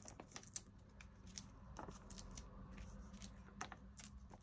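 Faint, scattered light clicks and taps of foam adhesive dimensionals being peeled off their backing sheet and pressed onto card, over a faint low hum.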